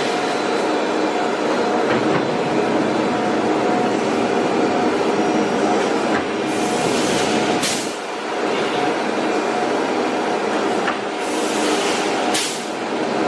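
CNC woodworking router running steadily, with two short hisses of air about five seconds apart, the first about six and a half seconds in and the second near the end.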